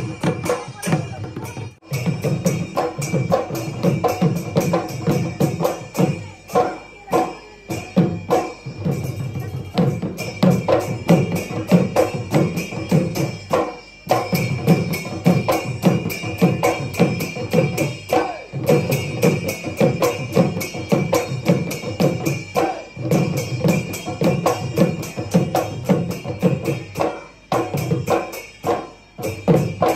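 Mising Gumrag folk dance music: drums beating a steady, driving rhythm, with sharp clicking percussion strikes over them.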